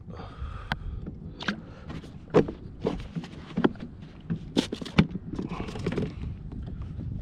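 A series of about eight sharp, irregular knocks and thuds over a steady low rumble and hiss.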